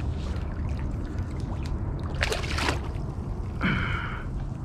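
Water sloshing and splashing as a hooked sheepshead is reeled to the surface beside a kayak and lifted out, with a short splash about halfway through and another brief burst near the end, over a steady low rumble.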